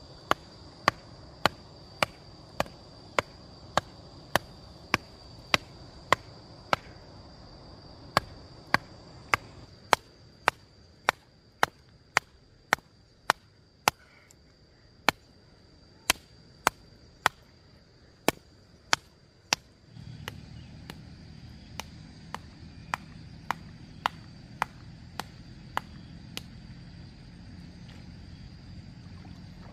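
Sharp chopping knocks in a steady rhythm, nearly two a second, with a couple of short breaks. A steady high whine runs underneath, and a low hum starts about twenty seconds in.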